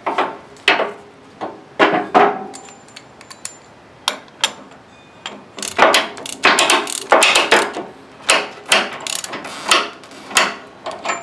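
Ratchet tie-down strap being pulled through its spool and tightened by turning the spool with a socket wrench and 1-1/8-inch socket: nylon webbing sliding and a few clicks at first, then runs of quick ratcheting clicks in the second half.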